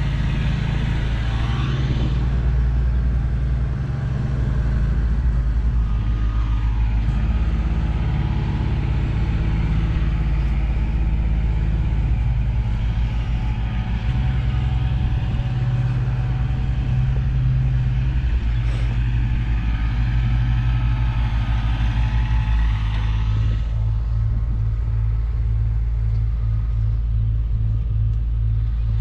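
Diesel engine of a Hyundai HX85A excavator running steadily close by, a loud low drone, with a faster regular throb near the end.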